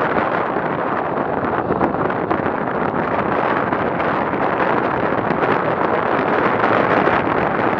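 Steady wind rushing over the microphone of a camera carried on a bicycle ridden at about 40 km/h.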